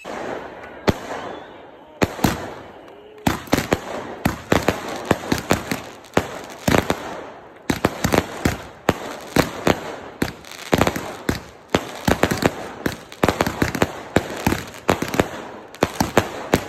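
Fireworks going off: a few single sharp bangs in the first three seconds, then a rapid barrage of bangs and crackles, several a second.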